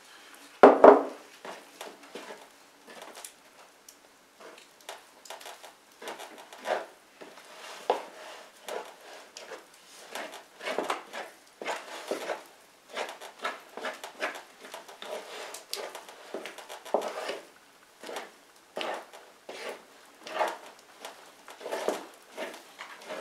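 Wooden spoon stirring and scraping wet bread dough in a large earthenware bowl: irregular knocks and scrapes of the spoon against the bowl, with one louder knock about a second in.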